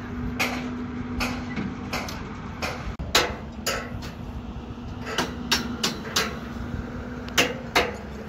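Irregular hammer blows on steel formwork and pipe props, sharp metallic knocks coming in small clusters, the loudest about three seconds in. A steady low hum runs underneath.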